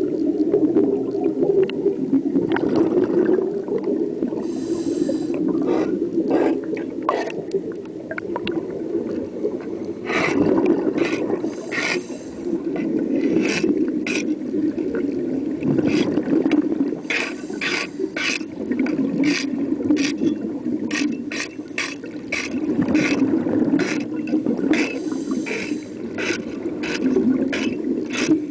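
Heard underwater: a scuba diver's exhaled regulator bubbles bubbling in surges every few seconds, with many sharp, irregular scrapes and knocks from a hand scraper working marine growth off a ship's propeller, the strokes coming thickest in the second half.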